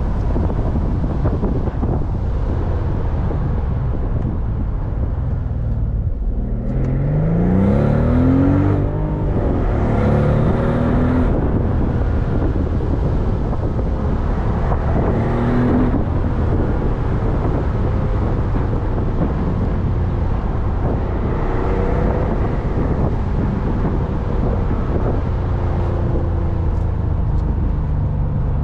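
Mercedes-Benz SL65 AMG's 6.0-litre twin-turbo V12 running on the road, with steady engine and road noise. About six seconds in, the engine note climbs under acceleration, and two shorter rises follow before it settles into a steady cruise.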